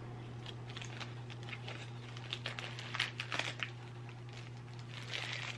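Packaging crinkling and rustling in short spells as a small advent calendar gift is unwrapped by hand, over a steady low hum.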